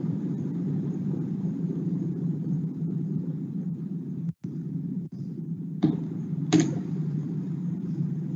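Steady low rumbling room noise picked up by a video-call microphone, cutting out for an instant midway, with two short sharp clicks near the end.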